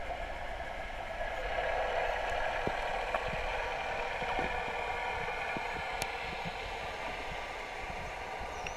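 Steady underwater drone and hiss heard through the camera's housing, with a few faint clicks, slightly louder from about a second in.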